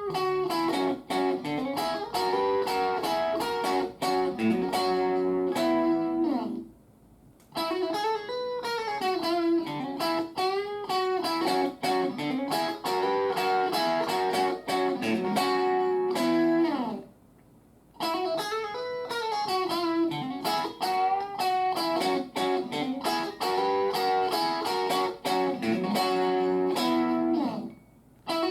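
Electric guitar played through a BOSS Nextone Stage amplifier on its lead channel at gain 5. It plays a single-note lead line with string bends, in phrases broken by short pauses about 7 and 17 seconds in.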